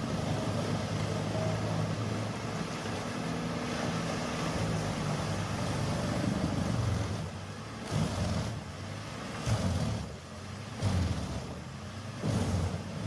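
Engine of a large wood-processing machine running steadily, with four brief louder bursts in the second half.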